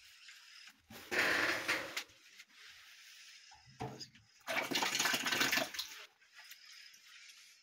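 Water running from a plastic pipe and splashing into a bucket of water, in two spurts: one about a second in, and a slightly longer one around the middle.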